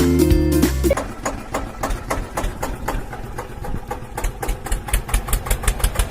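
Background music cuts off about a second in, then a small engine idles with a fast, even ticking beat.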